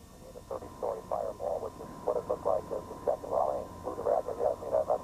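A voice talking through a small radio speaker, thin and tinny, starting about half a second in and running on, over a steady electrical whine.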